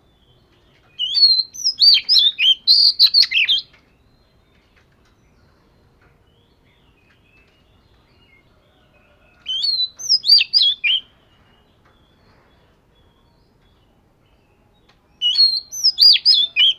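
Oriental magpie-robin singing in three short phrases of quick, sweeping notes, separated by pauses of several seconds. The last phrase starts near the end.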